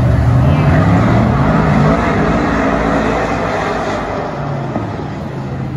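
Dirt-track race car engine running hard, its pitch climbing over the first couple of seconds, then falling and easing off before building again near the end.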